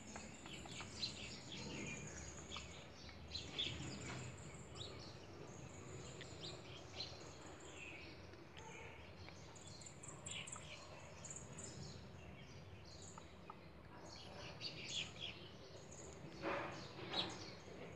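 Faint small birds chirping over and over in the background, over a low steady hiss, with a couple of short louder sounds near the end.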